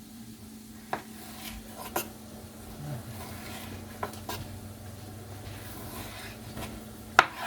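Scattered light clicks and knocks of kitchen utensils and cookware, the loudest near the end, over a faint steady hum.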